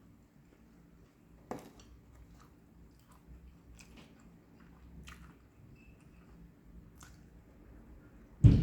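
Close-up chewing of crispy fried chicken, with soft wet mouth clicks every second or two. A single loud thump sounds near the end.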